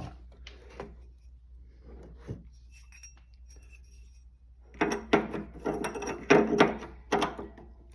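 Metal hand tools clinking and rattling as they are handled. A few faint clicks come first, then a busy run of sharp clinks and clanks in the second half.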